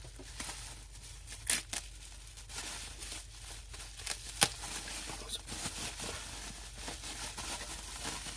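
Sealed product packaging being torn open and handled: tearing and crinkling with a few sharp clicks.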